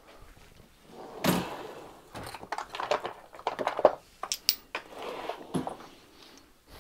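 Workshop handling noises: a solid thunk about a second in, then an irregular string of clicks and knocks as wooden and metal items are moved and set down.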